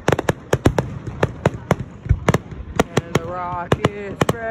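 Aerial fireworks bursting overhead: a rapid, irregular run of sharp bangs and crackles, several a second.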